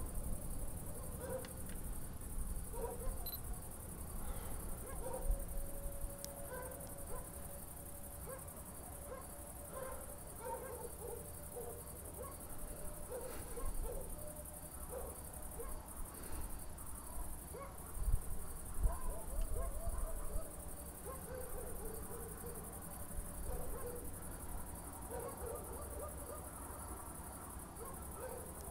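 Night outdoor ambience: a chorus of short, low hooting animal calls repeating irregularly over a steady high insect-like drone, with a low rumble swelling about two-thirds of the way through.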